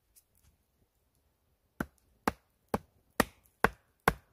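Hatchet chopping into a wooden stick: a steady series of sharp chops, about two a second, starting about two seconds in.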